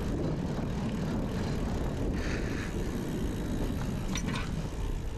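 Wind noise on the microphone while a gravel bike is ridden, with the bike's rolling noise underneath. A couple of short clicks come about four seconds in.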